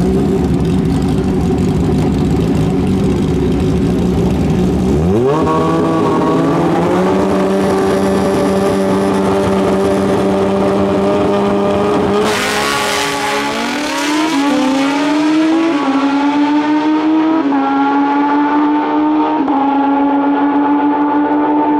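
Drag racing motorcycle engine at full throttle. A low rumble gives way about five seconds in to a sharply rising engine note that holds high. Its pitch then steps through several gear changes in the second half.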